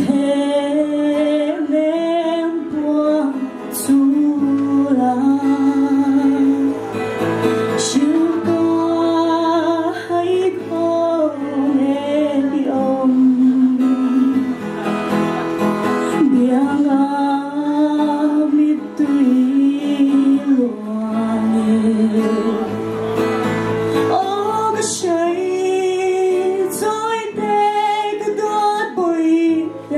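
A young woman singing a slow song through a microphone and PA, her voice wavering with vibrato, over a guitar accompaniment.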